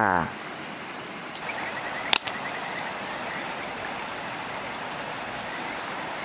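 Wood fire burning in a metal fire stand: a steady hiss of flames with a sharp crackle about two seconds in and a few fainter pops.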